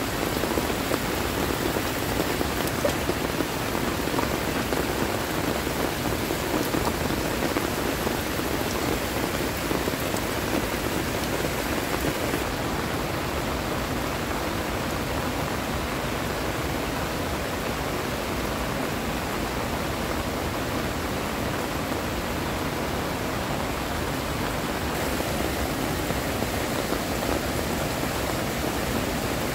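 Heavy rain pouring steadily, a dense even hiss of drops hitting the ground and surfaces.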